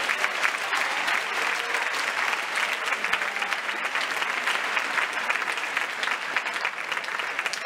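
Large audience applauding, steady dense clapping that fills a big hall.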